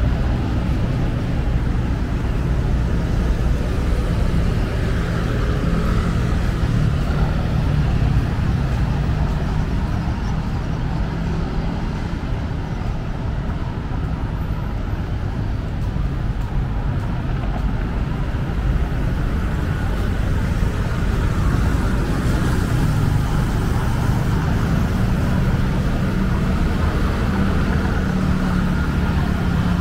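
Steady city road traffic: car engines running and tyres rolling past close by, an engine hum growing a little stronger near the end.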